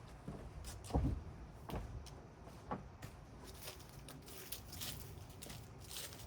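A ladder being moved and set in place: scattered knocks and clatters, the loudest a thump about a second in.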